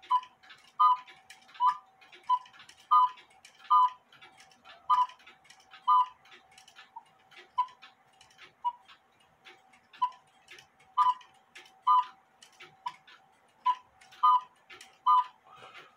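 Cuckoo clock movement ticking by hand-driven or uneven escapement action: a run of short, sharp clicks at an uneven pace, roughly one to two a second.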